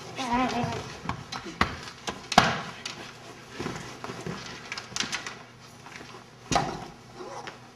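A short vocal sound at the start, then scattered knocks, thumps and rustling of people moving about, the loudest thumps about two and a half and six and a half seconds in.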